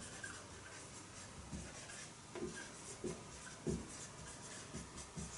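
Faint scratching strokes of hand writing or drawing, with a few soft taps.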